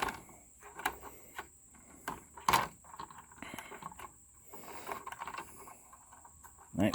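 Scattered light clicks and rattles of small computer parts being handled, with one sharper click about two and a half seconds in.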